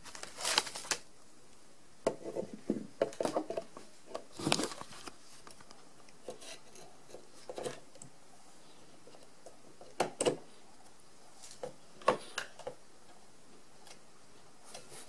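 Hands handling the acrylic panel and plastic base of a 3D illusion LED lamp: scattered clicks, taps and short scrapes in irregular clusters.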